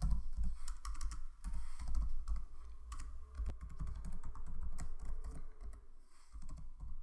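Typing on a computer keyboard: irregular runs of key clicks over a low background hum.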